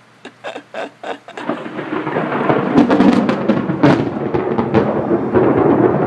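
Thunder from a close lightning strike: a few light ticks, then about a second and a half in a loud crackling rumble breaks out, with sharp cracks a second or two later, and keeps rolling.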